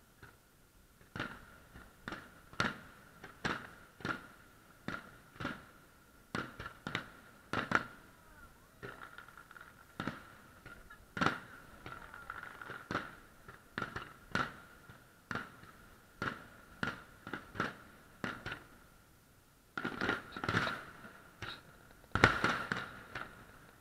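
Fireworks display: aerial shells bursting one after another in an irregular string of bangs. A denser run of bursts comes near the end, with the loudest bang about two seconds before it ends.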